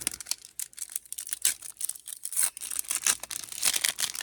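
Foil booster-pack wrapper crinkling and tearing as a Pokémon card pack is handled and opened: a quick string of crackles.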